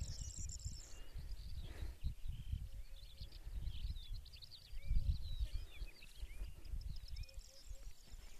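Small birds singing, many quick chirps and a high trill, over wind rumbling on the microphone that gusts loudest about five seconds in.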